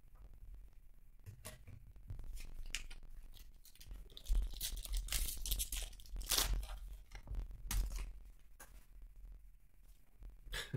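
Foil wrapper of a trading-card pack being torn open and crinkled by hand, a run of crackling rips and rustles that is loudest in the middle.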